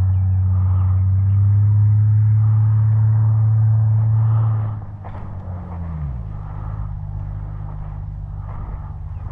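An engine running with a loud, steady low hum. About five seconds in it drops in level and its pitch slides down, settling into a lower steady hum.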